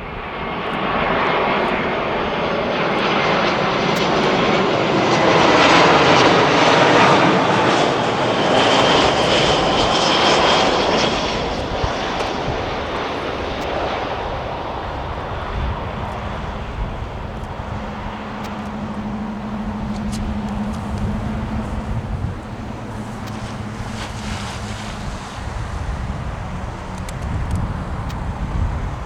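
Jet airliner engines passing by, building to their loudest about six to ten seconds in with a high whine over the rush, then easing to a steady lower rumble.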